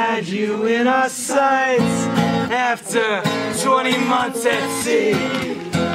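Live acoustic folk music: an acoustic guitar strummed under male voices singing a melody.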